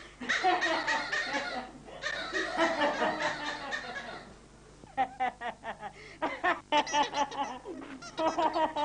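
A person laughing in two spells: a long stretch of chuckling, then after a short pause a run of short ha-ha bursts about three or four a second.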